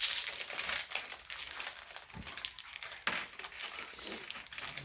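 Lego minifigure blind packets being torn open and crinkled by hand, an irregular rustling and crackling of packaging.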